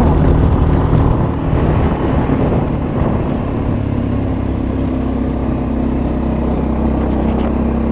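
Motor vehicle's engine running steadily with rumble from a rough dirt road, heard from on board while moving. The engine note changes about two seconds in.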